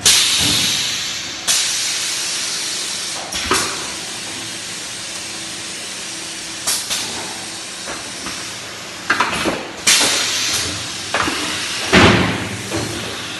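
Paper-tube gluing and winding machine running with a steady mechanical noise. Every second or two a sudden burst of hiss starts and then fades away.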